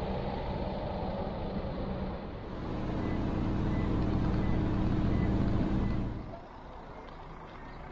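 Steady vehicle engine and road noise. From about two and a half seconds in it is heard inside the cabin of a moving Toyota HiAce minivan, with a steady engine note and hiss. A little after six seconds it falls away to a quieter open-air background.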